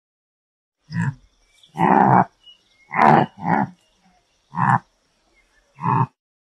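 An antelope calling: six short calls, roughly a second apart, the second one the longest, with silence between them.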